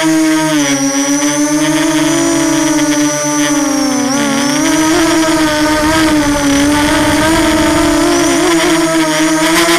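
QAV250 quadcopter's motors and propellers whining close to the onboard camera during flight. The pitch dips briefly about half a second in and again around four seconds in as the motors slow, with a low rush of air noise between about four and six seconds in.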